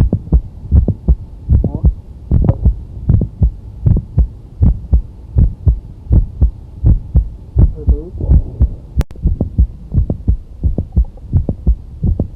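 Heart sounds heard through a stethoscope: a regular beat in which each cycle has an extra sharp click in mid-systole between the first and second heart sounds. This mid-systolic click is the typical sign of mitral valve prolapse.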